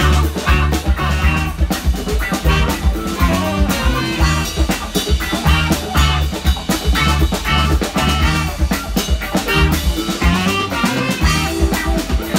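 Live funk band playing loudly: a drum kit and heavy low beat under electric guitar and keyboards, with a trumpet and tenor saxophone playing the horn line.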